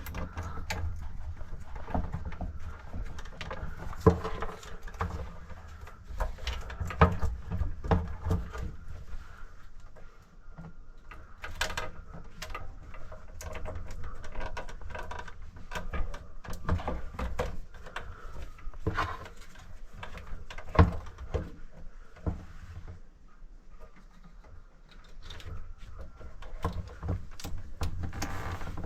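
Irregular knocks, clicks and scrapes of hands-on work, with a few sharper bangs, over a low rumble.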